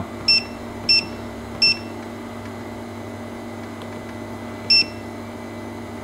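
Key beeps from a ZJ-LCD-M water flow meter controller as its buttons are pressed: three short beeps in the first two seconds and a fourth near the end, over a steady hum.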